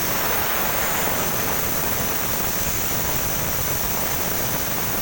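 Compressed oxygen rushing out of an opened cylinder valve in a steady hiss: the cylinder still holds gas and is being emptied.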